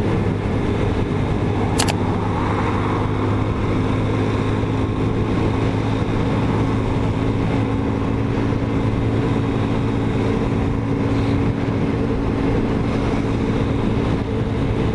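Motorcycle engine running at a steady cruising speed, with wind and road noise on the rider's microphone. A single sharp click about two seconds in.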